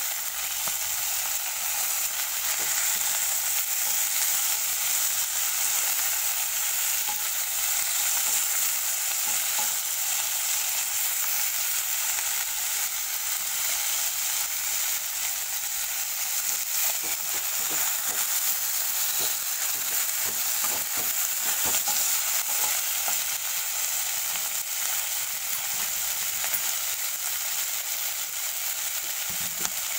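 Rohu fish pieces frying with sliced onion and ginger in oil in a wok, sizzling steadily. A metal spatula and spoon stir and scrape through it, with scattered clicks and scrapes, most of them around the middle.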